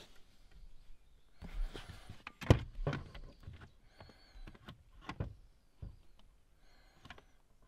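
Knocks and rustling from handling in a car's driver footwell, with a sharp knock about two and a half seconds in and a few lighter ones after it. Birds chirp faintly in the background.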